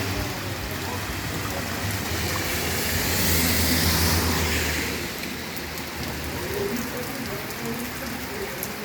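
Heavy rain falling steadily, with a vehicle going by on the wet road: a low engine hum and a hissing swell about three to four seconds in that fade away by about five seconds.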